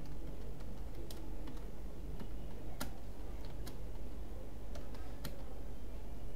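Typing on a computer keyboard: a few irregular keystroke clicks, spaced unevenly, over a steady low hum.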